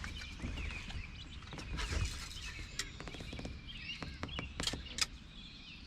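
Birds chirping over a low outdoor rumble, with a few sharp clicks in the second half.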